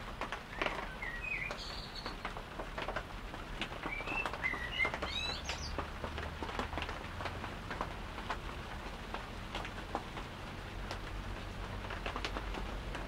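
Small birds chirping in a few short bursts, mostly in the first half, over a light background of scattered ticks and patters.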